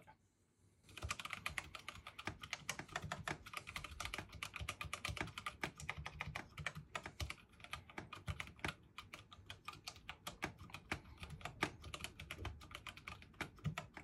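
Typing on a Glorious GMMK Pro 75% mechanical keyboard fitted with tactile Kailh Brown switches and thick O-rings under the keycaps: a fast, continuous clatter of keystrokes starting about a second in.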